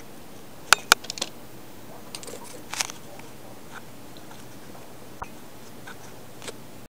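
Low room hiss with a handful of short, sharp clicks and taps, the two loudest close together about a second in and a small cluster near the three-second mark.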